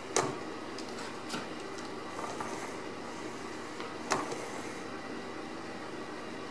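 Ragdoll kittens playing on a hardwood floor: two sharp knocks, one right at the start and one about four seconds in, with a few lighter taps between, over a steady background hiss.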